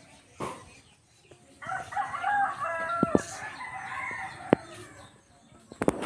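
A rooster crowing once, one long call of about three seconds that begins a little over a second in. A few sharp clicks fall during and after it.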